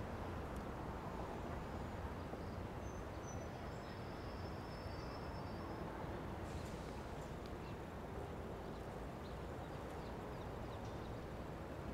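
Quiet city ambience: a steady low hum of distant traffic, with a few faint high tones a few seconds in.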